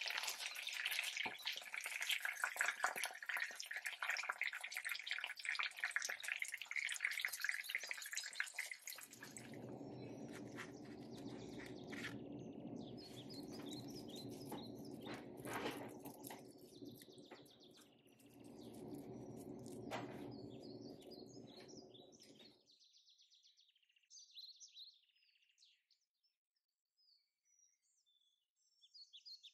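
Pomfret shallow-frying in hot oil in a pan, a dense sizzle full of small crackles, which stops about nine seconds in. A steadier low sound follows until about 22 seconds, and faint bird-like chirps run through the later part.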